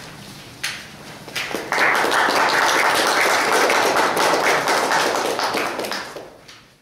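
Audience applauding: a couple of lone claps, then full applause from about two seconds in, dying away near the end.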